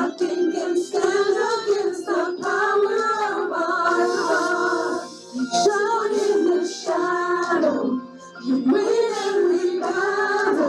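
Live worship music: a singing voice in sustained phrases over the band's accompaniment.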